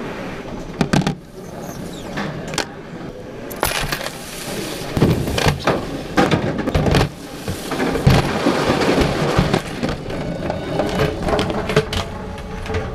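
Airport security tray carrying the camera being loaded and pushed along a roller conveyor: a string of sharp knocks and clatters as items are dropped in and the tray bumps over the metal rollers, busier from about five seconds in.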